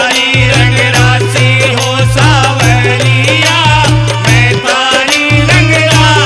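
Instrumental break in a Hindi devotional bhajan between sung lines: held bass notes, a wavering lead melody and steady percussion.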